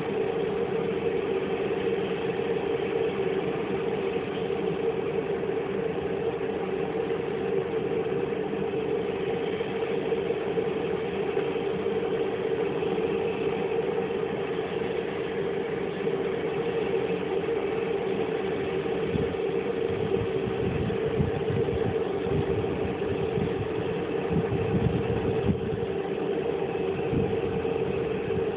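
Turbo Mentor trainer aircraft's engine running steadily at idle on the ground, with a deeper rumble coming and going in the second half.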